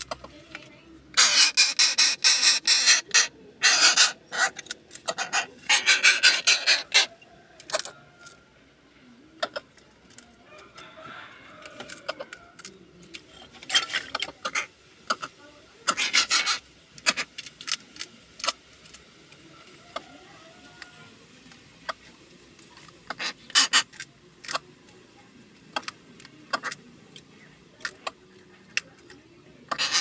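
Greater coucal's beak rasping and scraping against the floor and snail shells as it feeds. It comes in several bursts of rapid scratching, the longest lasting about two seconds near the start, with scattered single clicks between.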